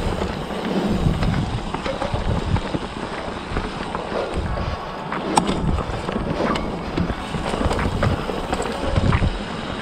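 Mountain bike rolling along a leaf-covered dirt singletrack: tyre noise on dirt and leaves with scattered sharp clicks and rattles from the bike going over bumps, and wind buffeting the microphone in low gusts.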